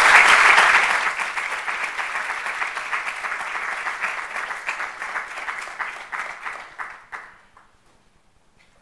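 Audience applauding, loudest at first, then thinning out and dying away about seven seconds in.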